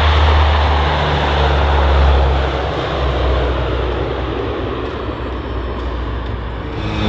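C-130 Hercules four-engine turboprop at takeoff power, a deep steady drone with propeller and engine noise. It peaks about two seconds in and then grows gradually fainter as the aircraft moves away.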